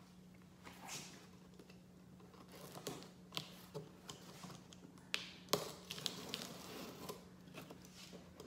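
Faint scrapes and taps of a box cutter slitting packing tape on a cardboard box and hands handling the box, with a few sharper clicks, two of them standing out a little over a third and about two thirds of the way through. A low steady hum runs underneath.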